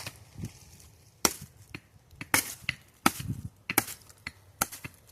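Machete blade chopping into a wooden branch: about five hard chops, each under a second apart, with lighter knocks between them.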